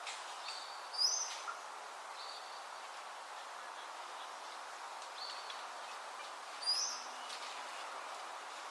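Wild bird giving a few short, high calls, the loudest about a second in and again near seven seconds, over a steady background hiss.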